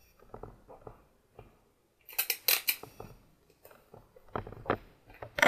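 A large sheet of paper being handled, rustling and crackling in short clusters, loudest about two seconds in and again near the end, with light clicks between them.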